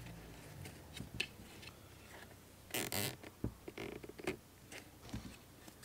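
Plastic zip tie being worked around the cloth polishing bonnet of a cordless buffer: faint scattered clicks and handling, with a short zipper-like rasp about three seconds in as the tie is pulled through its ratchet to hold the bonnet on.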